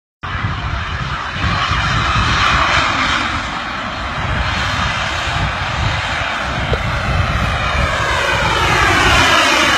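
Jet-powered hoverboard's turbines running loudly as a man flies on it. Near the end the sound takes on a sweeping, phasing quality as it climbs away overhead.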